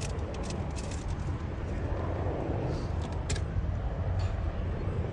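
Helicopter flying overhead at a distance, heard as a steady low rumble of its rotor and engines.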